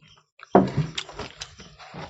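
Eating by hand from a plate of rice and curry: chewing and wet mouth sounds with small clicks. About half a second in comes a louder, short low sound.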